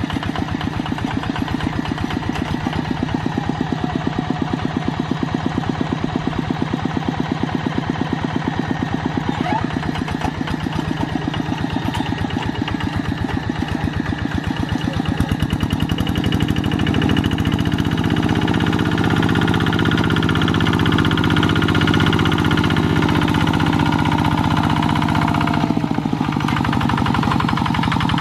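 Single-cylinder diesel engine of a two-wheel hand tractor running steadily under load with a rapid, even firing beat. It gets louder a little past halfway, with a steadier hum joining in that drops away near the end.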